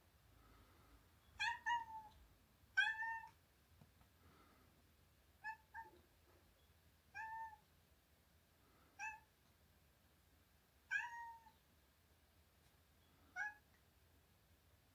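A house cat meowing over and over: about nine short meows, some in quick pairs, a second or two apart. They are the calls of a cat waiting at the front door to be let out.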